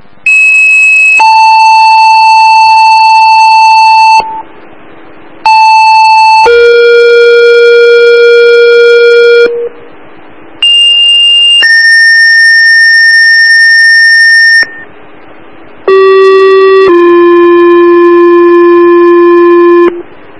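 Two-tone sequential paging tones over a scanner: four tone-outs in a row, each a short tone of about a second followed by a longer, different-pitched tone of about three seconds, with radio hiss in the short gaps. These are dispatch tone-outs that set off volunteer firefighters' pagers to call out more manpower.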